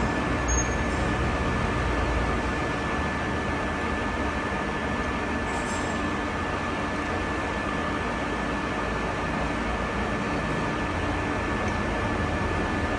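Metal lathe running steadily: an even mechanical hum with a constant thin whine.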